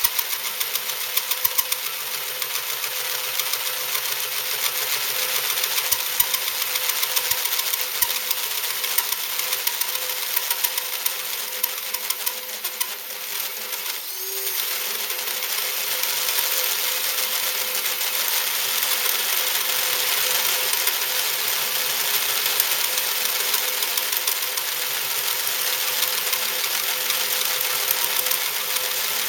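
A 1/2-inch drill drives a 1 7/8-inch hole saw through a thick cast-iron mill base. It runs steadily with a fast rattling chatter from the saw teeth, easing off briefly about halfway through.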